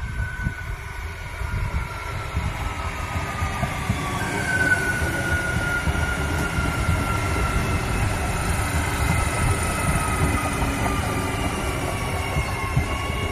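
Adelaide Metro 4000 class electric multiple unit running past along the platform: a steady low rumble of wheels on track that grows louder about four seconds in, with a high whine that slowly falls in pitch.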